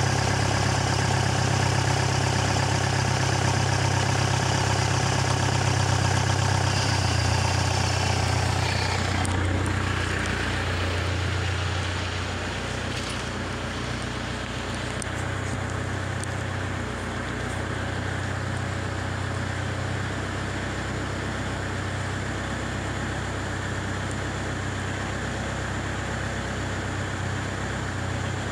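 2007 Mazda BT-50's 3.0-litre four-cylinder turbo diesel idling steadily. It is heard first close up under the open bonnet, then from about ten seconds in, quieter and duller from inside the cab.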